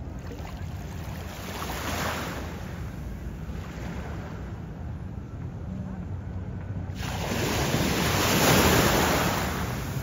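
Small sea waves washing onto a beach: one swell rises about two seconds in, and a larger wash builds suddenly at about seven seconds, peaks a second and a half later and fades. A steady low rumble runs underneath.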